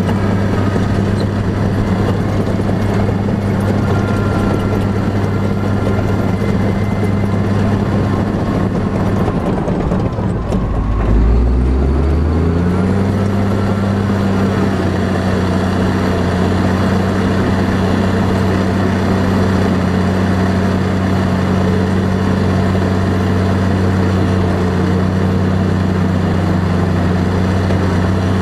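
A heavy vehicle engine running steadily with a deep drone. About ten seconds in, its pitch dips and then settles at a new, slightly different steady note.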